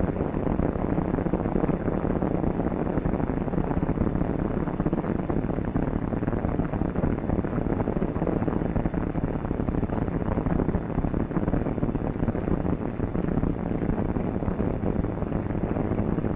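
Steady drone of a Douglas C-47's twin Pratt & Whitney R-1830 radial engines at low taxiing power, an even rushing rumble that does not change.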